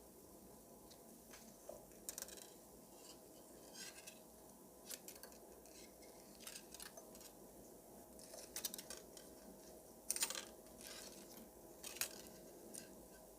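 Light metallic clicks and small scrapes of watchmaker's tools on the parts of a watch movement's mainspring barrel, scattered and irregular, with a few louder clicks in quick clusters in the second half.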